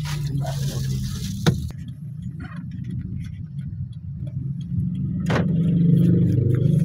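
Car engine running, heard from inside the cabin as a steady low hum that grows louder about five seconds in. A plastic bag rustles for the first second and a half, with a sharp click about one and a half seconds in and another about five seconds in.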